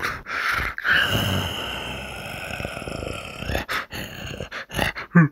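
A creature's rasping, growling roar, held for about two and a half seconds from about a second in, followed near the end by a run of short sharp clicks and snaps.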